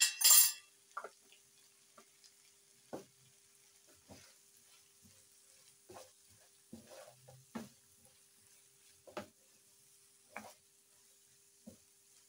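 Spatula stirring and scraping chopped green onions, ginger and garlic around a nonstick frying pan, a soft scrape or knock every second or so. A short hiss at the very start.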